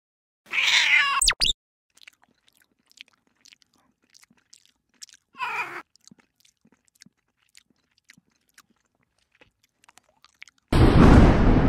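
A kitten gives a short, rough cry, followed by two sharp knocks. Faint scattered clicks follow, with a brief mew midway. Near the end a loud, steady rushing noise starts suddenly.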